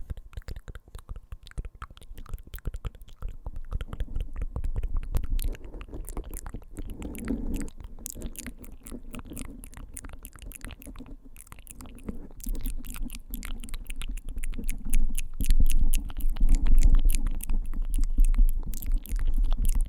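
Fingertips rapidly tapping on the microphone (ASMR "typing"): a dense run of close-up clicks over low thumps, the thumps getting heavier in the second half.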